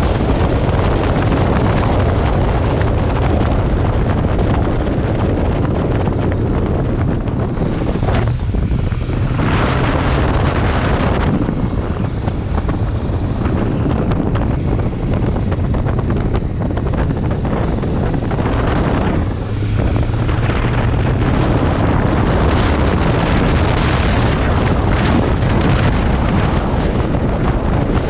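Wind rushing over the microphone of a moving motorcycle, with the engine's steady hum underneath. The rush dips briefly twice.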